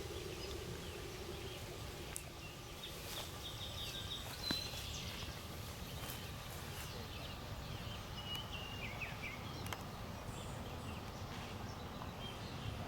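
The Whelen 2910 siren's low tone dies away within the first second, leaving outdoor ambience with many birds chirping, a steady low background rumble and a few faint clicks.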